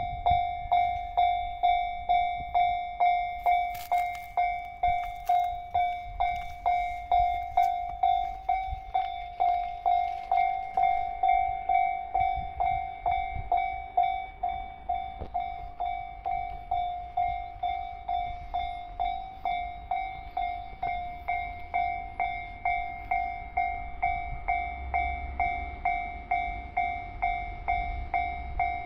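Japanese railway level-crossing warning bell ringing steadily, an electronic ding repeating about one and a half times a second, with a low rumble underneath.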